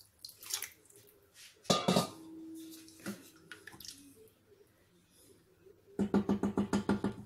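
Water poured from a steel bowl into a steel cooking pot, then a loud clank of metal on the pot about two seconds in that rings on briefly. Quieter stirring and scraping follow, and near the end a fast run of rapid knocks, about eight a second.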